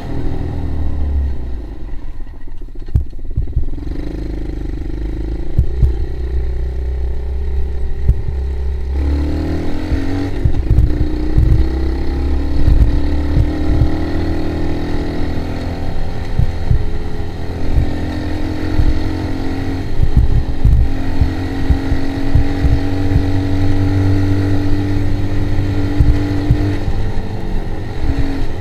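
ATV engine running while the quad is ridden on a rough lane, its note stepping up about nine seconds in and then rising and falling with the throttle. Short knocks and a low rumble run under it.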